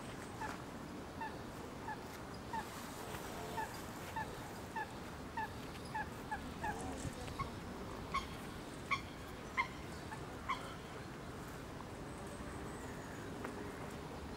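Canada goose calling: a run of short, soft calls about every half second, then four louder honks close together around the middle.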